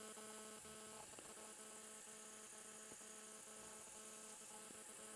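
Near silence in an open meadow: a faint, steady, even-pitched hum that fades out near the end, over a faint high hiss.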